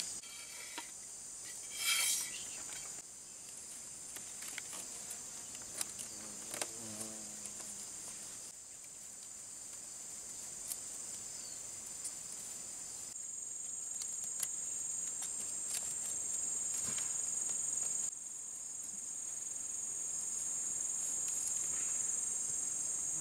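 Steady high-pitched insect chorus, with scattered light clicks and a brief rustle from split bamboo strips being handled and woven.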